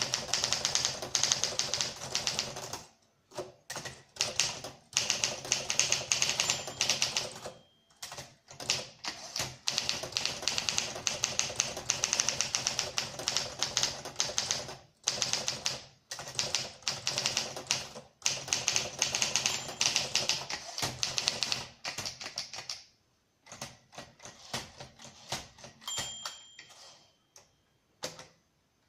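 Olympia SM4 portable manual typewriter being typed on: quick runs of sharp keystroke clacks broken by short pauses.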